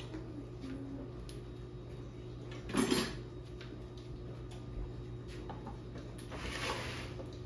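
Kitchen handling noises: a sharp knock or clatter about three seconds in, then a longer, softer scraping or rustling sound near the end, with a few light clicks. A steady low appliance hum runs underneath.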